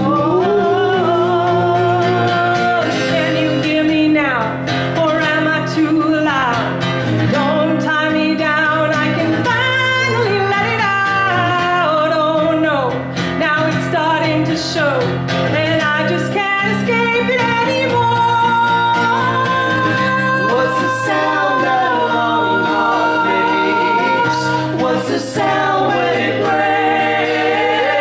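Live acoustic folk music: two women and a man singing long, gliding notes in close harmony over an acoustic guitar.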